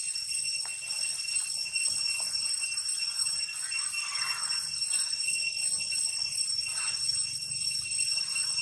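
A steady, unchanging high-pitched insect drone, with a few faint brief rustles.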